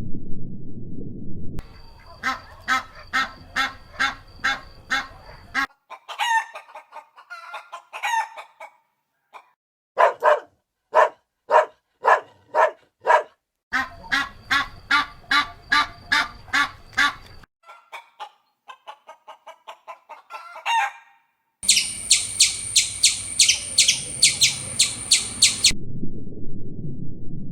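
Domestic poultry calling in a string of short edited clips: trains of short repeated clucks and calls, about two or three a second, broken by abrupt cuts between clips, with a faster, shriller pulsing call near the end.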